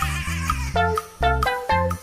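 Bouncy background music with a steady beat and short plucked notes, about two a second.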